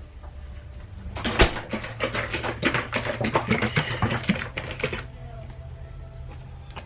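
A rapid, irregular run of clicks and rattles from kitchen containers and utensils being handled while seasoning food, lasting about four seconds from about a second in, over a steady low hum.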